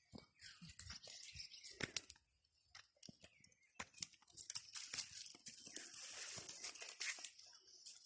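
Footsteps crunching and scuffing on dry leaves, dirt and loose stones of a hillside trail: irregular crackles and rustles, with a faint steady high hiss from about four seconds in.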